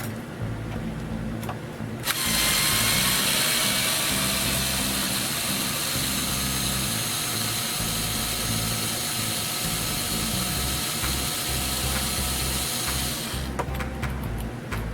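A small handheld power driver runs steadily for about eleven seconds, starting suddenly about two seconds in and stopping near the end, with a slight fall in pitch, as it loosens a rod-end screw on an RC crawler's suspension link. A few small clicks come before it.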